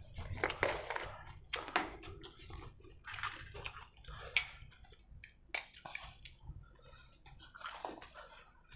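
A mayonnaise jar being opened and a metal spoon scooping mayonnaise out of it and dabbing it onto leafy greens: irregular small clicks and scrapes of spoon against jar, with wet, squishy sounds of the thick mayonnaise.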